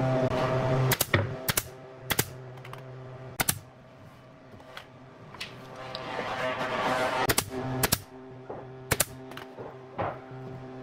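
A series of sharp knocks at irregular intervals, some in quick pairs, over a steady hum of several tones that swells about two-thirds of the way through.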